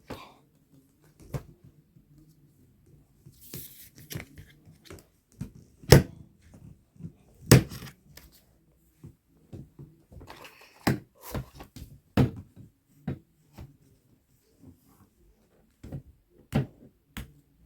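Plastic parts of a vacuum cleaner being handled and fitted together: irregular clicks and knocks, a few of them sharp and loud, with brief scraping and rustling between them.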